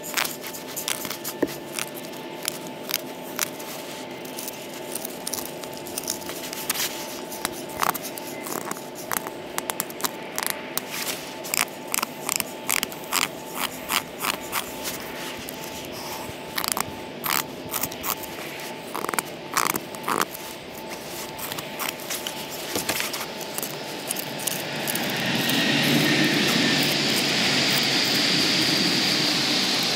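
Hook knife cutting shavings out of the bowl of a green birch spoon: a long run of short scraping cuts, at times about two a second, that thins out about 23 seconds in. Near the end a steady rushing noise rises and is the loudest sound.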